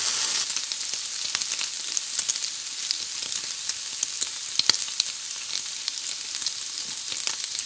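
Bacon strips frying in a grill pan: a steady high sizzle dotted with many small crackling pops of spitting fat.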